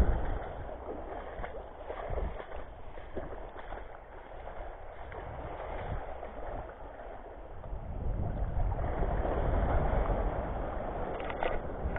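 Wind buffeting the microphone over the wash of small waves in shallow sea water; the wind rumble eases for a few seconds and picks up again about two-thirds of the way in.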